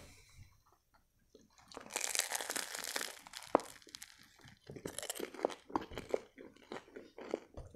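Close-miked eating sounds from a turkey shawarma in grilled lavash. The wrap crackles and rustles as it is lifted, then about halfway in comes a bite, followed by chewing with many short crisp crunches.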